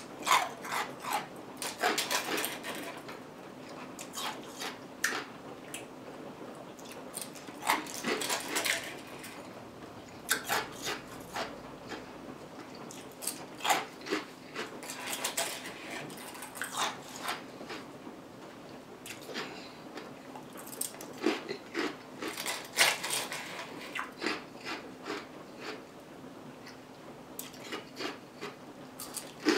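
Close-up crunching and chewing of ice, bites coming in clusters of sharp crackling crunches with quieter chewing between, over a faint steady hum.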